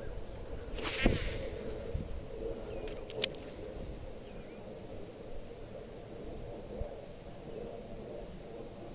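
Spinning or casting rod and reel during a swimbait cast and retrieve: a brief whoosh about a second in, a sharp click a couple of seconds later, then low rustling as the line is worked back. A faint steady high whine runs throughout.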